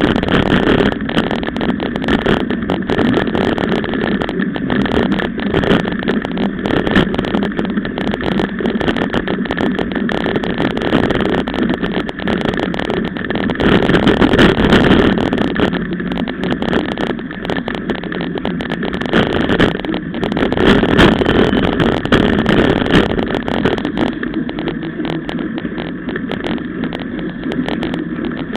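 Riding noise picked up by a camera mounted on a mountain bike: a steady rush of wind and tyres with constant small rattles and knocks from riding over a rough dirt track, swelling louder a couple of times.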